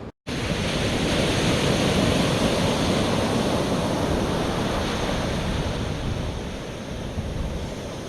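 Sea surf breaking and washing onto the beach, with wind buffeting the microphone; the wash swells to its loudest about two seconds in and slowly eases off toward the end.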